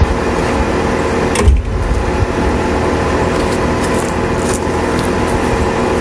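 Outdoor condenser of a 2-ton central heat pump running: a steady hum of the fan and compressor with several steady tones through it. There is one sharp knock about a second and a half in.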